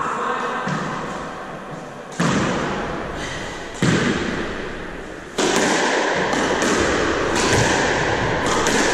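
Squash ball struck with racquets and smacking off the court walls: a few spaced sharp hits, then quicker ones in a rally from about five seconds in, each one ringing on with a fading echo.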